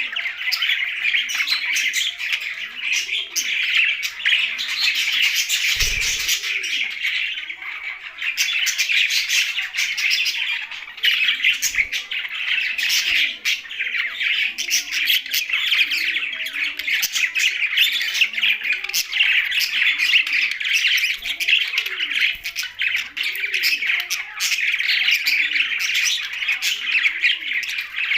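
Budgies and parrots chirping and chattering without pause, with harsher squawks mixed in. A low arching call repeats every second or two underneath, and there is a single thump about six seconds in.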